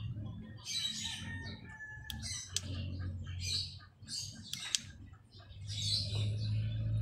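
Chickens clucking and calling again and again in the background. A few sharp clicks come as the plastic back cover of an LED TV is handled, over a steady low hum.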